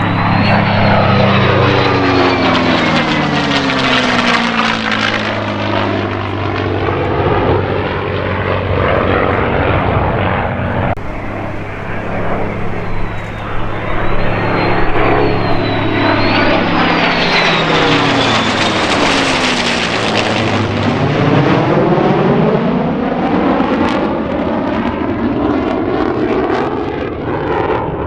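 F-16 fighter jet making two loud low passes. Each time the jet roar swells and then falls in pitch as it goes by, with a sweeping, phasing sound.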